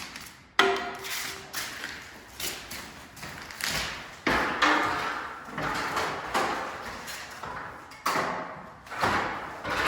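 Hand sanding of painted wooden crown molding with a piece of 150-grit sandpaper: a series of rasping strokes, some starting sharply, scuffing off the old paint to give the patching compound a better surface.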